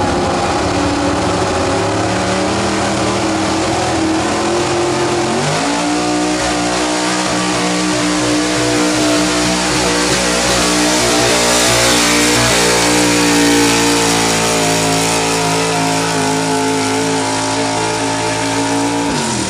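Pickup truck's engine running flat out as it drags a weight-transfer sled in a truck pull. The engine pitch holds steady, jumps higher about five and a half seconds in, is held there for most of the pull, then drops off near the end as the truck lets off.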